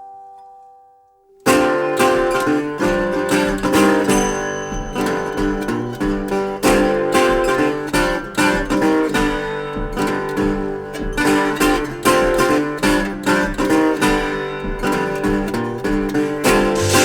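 Acoustic blues guitar intro: after a held note fades out, a plucked, picked guitar part starts about a second and a half in, over a low bass pulse.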